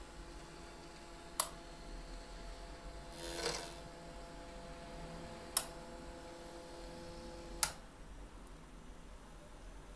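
Stepper motor of a model elevator's hoist running with a steady hum as the car rises, the hum stopping near eight seconds as the car arrives. A few sharp clicks come about a second and a half in, near six seconds, and as the hum stops.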